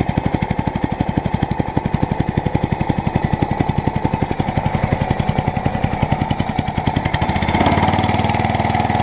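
Lawnmower petrol engine running slowly with distinct, evenly spaced firing pulses, then revving up to a higher, smoother speed about seven seconds in as the throttle is opened up via the bent control bar.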